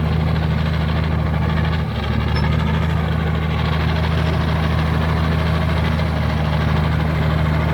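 Komatsu D83E bulldozer's six-cylinder turbo diesel engine running steadily, with a brief dip about two seconds in.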